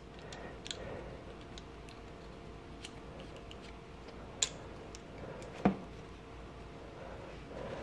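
Convertible snap ring pliers being switched from expanding to compressing: a few small metal clicks and taps as the tips are reset, two of them louder, about four and a half and five and a half seconds in, over a faint steady hum.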